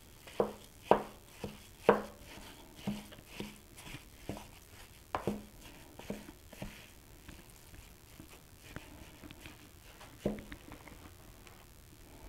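Wooden spoon stirring moist cornbread dressing in a large mixing bowl, knocking against the bowl's side. The knocks come a few times a second at first, then grow sparse, with a last one about ten seconds in.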